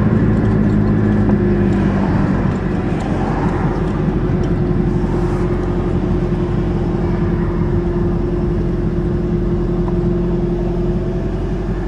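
Turbo Dodge Aries wagon driving at a steady speed, heard from inside the car: a constant engine drone over road noise, pulling a loaded trailer of scrap.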